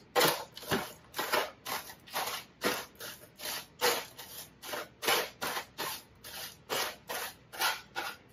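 Crispy baked bacon crunching and crackling as it is crumbled up on a sheet pan, in quick repeated crunches, about three a second.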